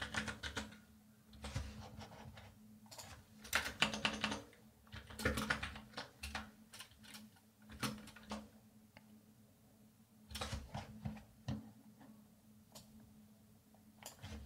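Computer keyboard typing in short bursts of keystrokes with pauses between them.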